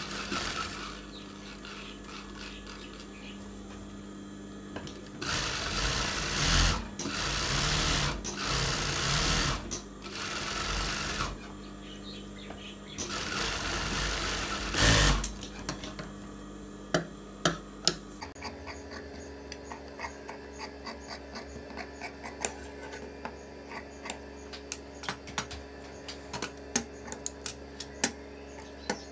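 Industrial sewing machine stitching a shirt collar in several short runs of a second or two each, stopping and starting, over a steady hum. In the last third the machine is stopped, leaving the hum and a scatter of light sharp clicks.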